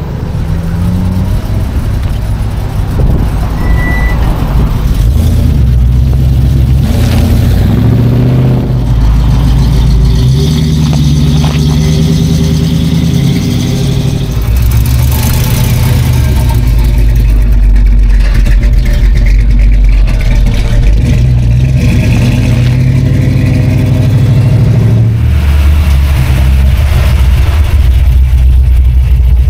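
Classic American V8 muscle car engines rumbling and revving as cars drive past one after another, the engine note changing every few seconds as each goes by.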